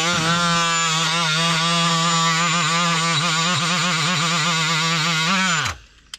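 Cordless die grinder with a scouring-pad abrasive attachment running at speed. Its whine wavers in pitch as the pad bears on rubbery underbody coating and rust. Near the end it winds down and stops.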